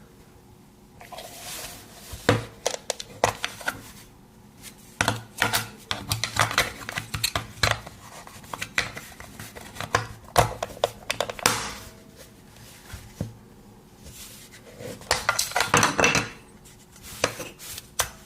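Clicks, taps and scrapes of a plastic TV remote control being handled and taken apart, coming in irregular clusters of sharp clicks with a few short scraping rubs in between.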